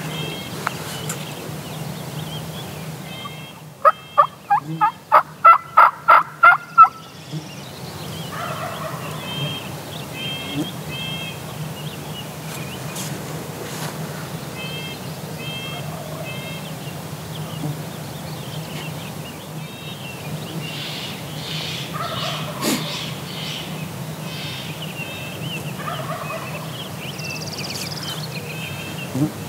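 Wild turkey yelping: a run of about ten loud, evenly spaced yelps that grow louder, followed later by several fainter turkey calls. Small birds chirp throughout.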